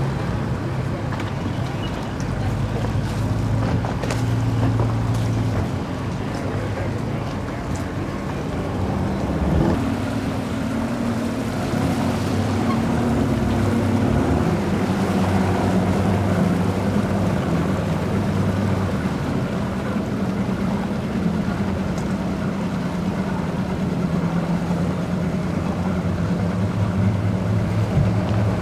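Motorboat engine running at low speed near a boat ramp, a steady hum whose pitch steps up and down a few times.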